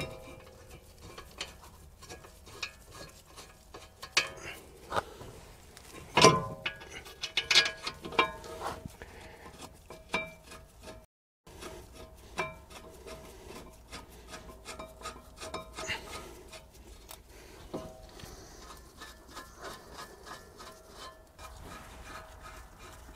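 Metal clinks, taps and scrapes as a brake pad carrier is handled and fitted over a brake disc on a car's front hub. The sounds are scattered and short, loudest about six to eight seconds in.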